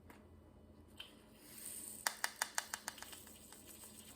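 A brief soft rustle, then a quick run of about seven small sharp clicks over roughly a second: diamond-painting drills and their small plastic bags and containers being handled while kitting up.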